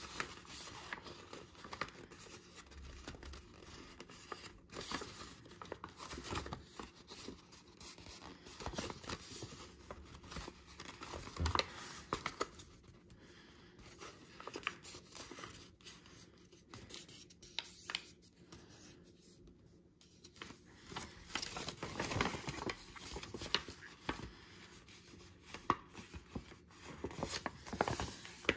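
A sheet of letter-size paper being folded and creased by hand along a grid of pleats: irregular crinkling and rustling as the sheet is bent, with short scrapes of fingers pressing the creases flat. It gets louder about halfway through and again past the three-quarter mark.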